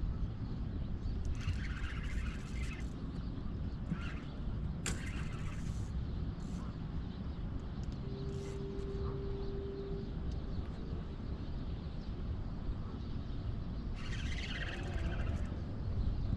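Steady low outdoor rumble on an open boat, with a few short bird calls, a sharp click about five seconds in, and a steady single tone lasting about two seconds near the middle.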